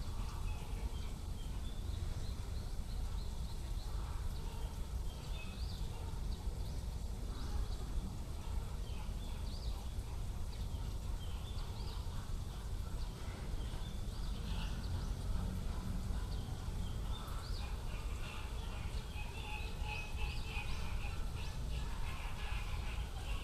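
Outdoor ambience: a steady low rumble with scattered faint chirps of small birds, which come thicker near the end.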